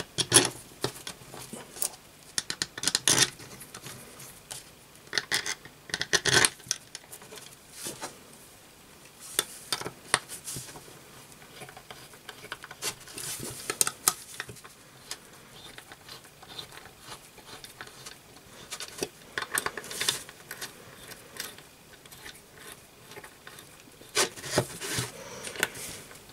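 Irregular clinks, taps and scrapes of small steel parts being handled, as an Allen key turns the socket-head screws that fasten a spindle housing to its steel bracket. Sharp little clicks come in scattered clusters every few seconds.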